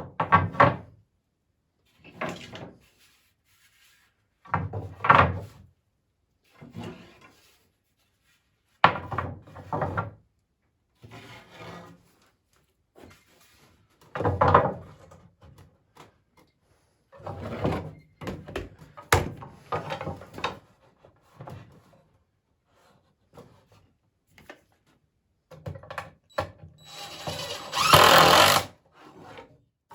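Cordless drill driving screws into poplar boards in short bursts of about a second each, roughly a dozen times with pauses between. A longer, louder run comes near the end.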